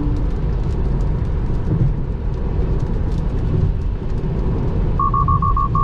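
Tesla Model 3 cabin noise at highway speed in rain: a steady rumble of tyres on wet road with rain spray. About five seconds in, the car starts a rapid run of short, high electronic beeps.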